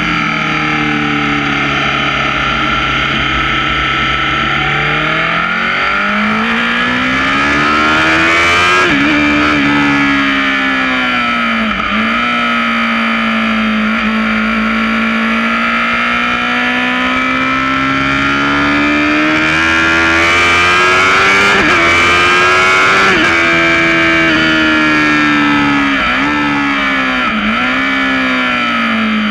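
Sport motorcycle's engine heard close up from its own onboard camera, revs climbing and falling as it is ridden round a track. There are sharp drops in pitch at gear changes about nine and twelve seconds in and a few quick dips near the end, with a rush of wind throughout.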